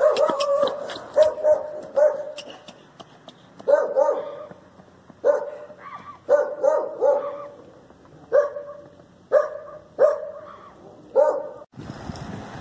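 A dog barking repeatedly: about ten short bursts of one to three barks, a second or so apart.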